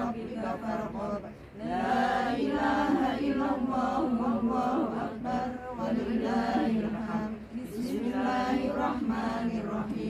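A group of women reciting Arabic prayers together in unison, a chant-like recitation held on a steady pitch, with brief pauses between phrases.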